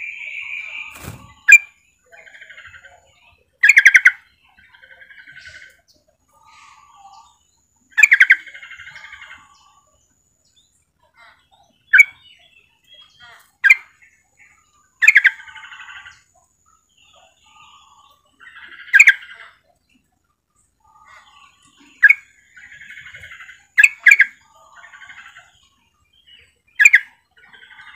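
Female yellow-vented bulbul (trucukan) calling, the call used to lure males into answering. Loud, sharp call notes come every two to four seconds, each followed by a softer, short chattering phrase.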